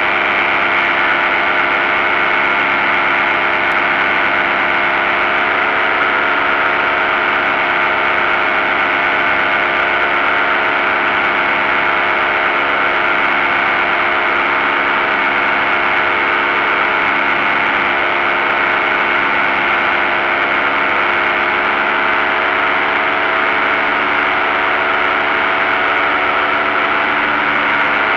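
Paramotor engine and propeller running steadily at cruise power in flight: a loud, even engine tone that holds the same pitch throughout, with rushing air beneath it.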